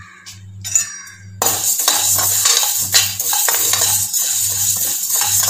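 Coriander seeds being dry-roasted in a metal kadai, stirred with a metal spatula. About a second and a half in, a steady rattling scrape of seeds and metal on the pan begins.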